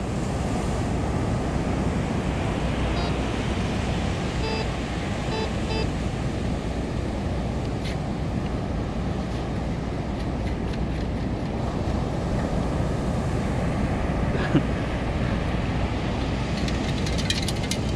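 Steady wind and surf noise on the microphone at the beach. A few short electronic beeps from the metal detecting gear come about three to five seconds in. Near the end there is a single knock, then a quick run of clicks.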